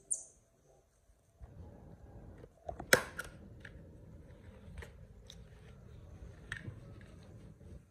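Crinkling and rustling of a disposable diaper being handled and fastened on a baby monkey, with scattered small clicks and one sharp click about three seconds in.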